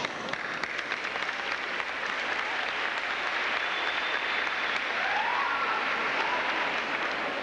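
Audience applauding in a large hall, steady clapping from many hands.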